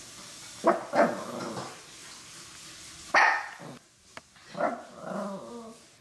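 Maltese dogs barking, about five short barks spread over the few seconds, while they are made to wait for their food.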